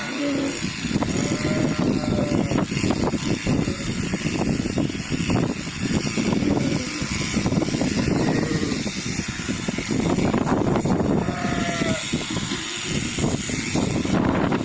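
Strong wind buffeting the microphone with a constant gusting rumble, while a sheep bleats briefly about a second in and again about eleven seconds in.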